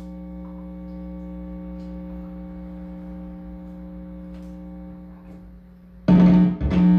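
Electric guitar amplifier sounding a steady buzzing tone, then two loud guitar strums close together near the end.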